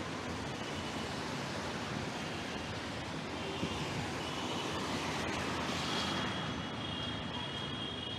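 Steady rush of wind and rain, swelling briefly about six seconds in.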